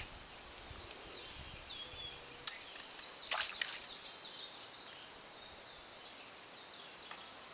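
Birds chirping and calling over and over in short high notes, with a steady thin high whine beneath them. A few short clicks come between two and three and a half seconds in.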